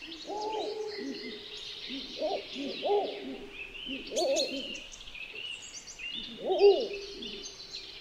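An owl hooting: short rising-and-falling hoots in loose groups every second or two, loudest a little before the end. Small birds chirp and twitter more faintly behind it.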